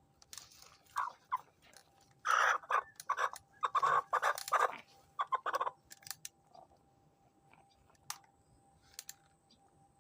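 Chickens calling, a quick run of short clucks packed between about one and six seconds in, then a few sharp clicks near the end.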